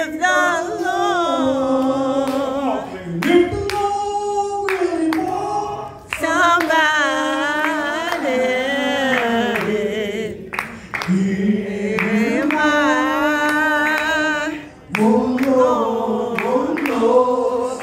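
A man singing a praise and worship song solo into a handheld microphone, holding long notes with vibrato and pausing briefly for breath between phrases.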